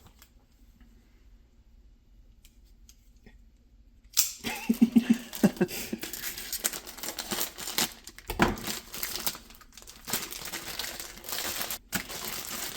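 Plastic instant-noodle wrapper crinkling while the dry noodle block is crunched and broken up inside the packet. The noise starts suddenly about four seconds in, after a quiet stretch, and goes on in irregular crackles.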